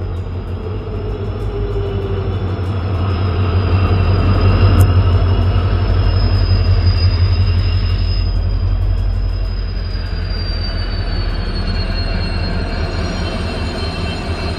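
EMD WDP-4 (GT46PAC) diesel-electric locomotive, with its 16-cylinder two-stroke engine, running past close by. Its deep engine rumble swells to its loudest about four to five seconds in and eases after about ten seconds as the passenger coaches roll by. A steady high-pitched wheel squeal sounds throughout.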